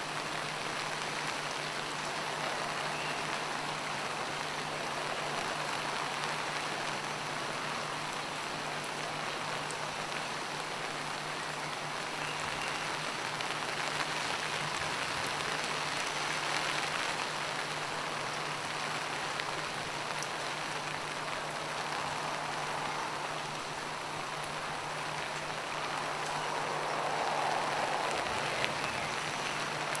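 Steady rain falling, an even, continuous hiss of drops, with a faint low steady hum underneath.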